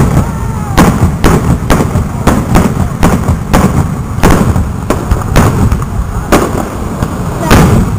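Loud barrage of aerial firework shells bursting in quick succession, about two to three sharp bangs a second over a continuous low rumble.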